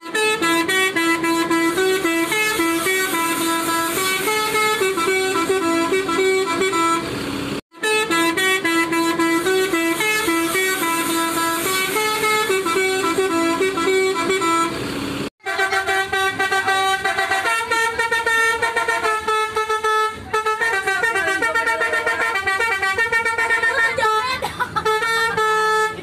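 Indonesian bus 'telolet' horn, a set of multi-tone air horns, playing a tune of quick stepped notes. It breaks off briefly twice, about a third of the way in and again a little past halfway, and each time starts up again with another run of notes.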